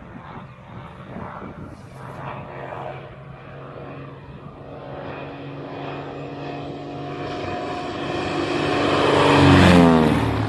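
Light propeller aircraft's engine droning steadily, growing louder and then dropping in pitch as it passes close near the end.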